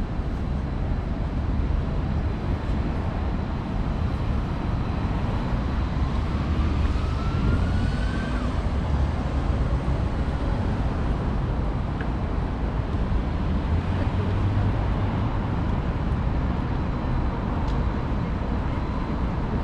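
Steady city traffic noise at a busy intersection: cars and taxis driving through, with a continuous low rumble. A faint rising whine comes in about six to eight seconds in.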